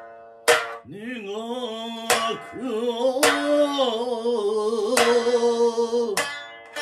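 Japanese biwa lute struck sharply with its large plectrum about five times, each stroke ringing out, under a man's voice holding one long sung note whose pitch wavers and bends, in the style of biwa sung recitation.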